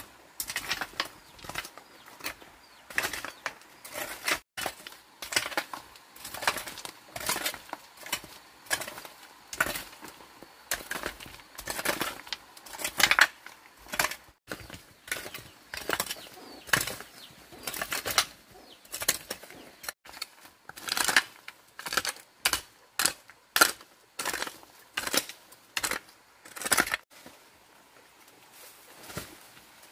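A hand hoe scraping and chopping into dry, stony dirt and leaf litter in quick repeated strokes, each a short sharp scrape. Near the end the strokes stop.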